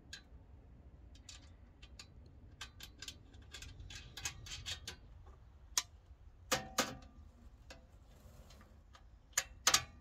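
Faint metallic clicks and clinks of bolts and a metal side guard being handled and fitted onto a rotary tiller, with louder knocks about six and a half and nine and a half seconds in.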